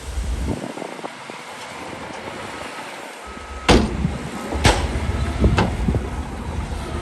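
Heavy earthmoving machinery at work: a low engine rumble broken by two loud sharp bangs about three and a half and four and a half seconds in, followed by smaller knocks.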